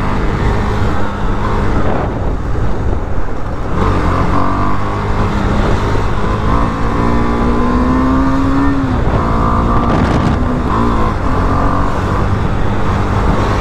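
A superbike engine running at riding speed over a steady low rumble. From about four seconds in its pitch climbs steadily as it accelerates, drops back just before nine seconds, then rises again.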